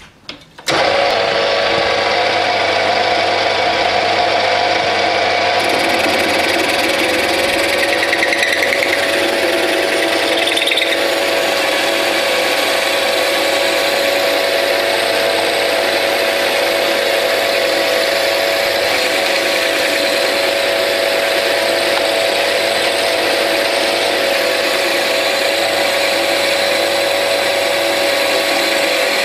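Bernardo P 600 G metal lathe starting up about a second in and running steadily at about 560 rpm while a parting tool in a rear toolpost cuts into a spinning steel bar.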